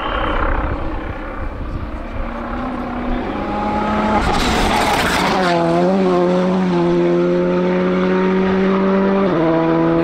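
Volkswagen Polo GTI R5 rally car's turbocharged four-cylinder engine at full throttle as the car approaches, with its note rising. It passes close by about five seconds in with a rush of tyre and gravel noise, then pulls away on a steady note and changes gear near the end.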